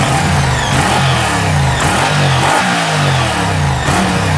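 Moto Guzzi V100 Mandello's 1042 cc 90-degree V-twin revved repeatedly while standing, the pitch rising and falling back about once a second. It has a loud note carried mostly by the bass.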